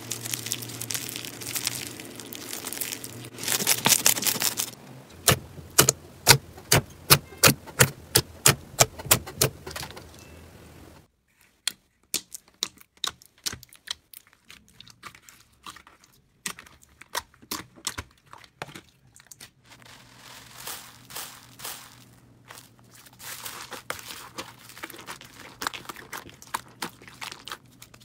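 Hands squeezing and pressing crunchy bead-filled slime: dense crackling at first, then a run of sharp pops at about two to three a second, then scattered clicks and crackles again.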